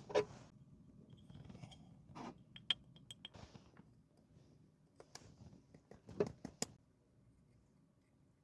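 Light clicks, taps and a few small clinks of small objects being handled, with a quick run of ringing clinks about three seconds in and a few sharper taps around five to six and a half seconds.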